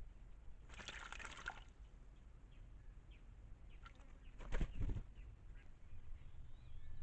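A white-naped jay bathing in a shallow pool of water, with a burst of splashing about a second in and a second, louder flurry about four and a half seconds in. Faint short bird chirps sound between them.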